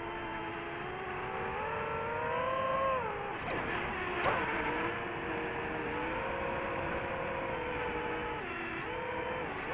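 DJI FPV drone's motors and propellers whining steadily, the pitch shifting up and down with the throttle. About three to four seconds in the whine swoops down and back up as the drone banks, and it sags again briefly near the end.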